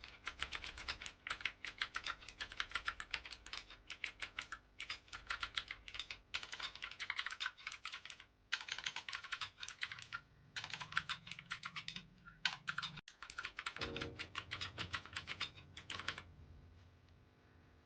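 Fast typing on a Tsunami MK68 mechanical keyboard with clicky Outemu Blue switches, in runs with short pauses, stopping near the end.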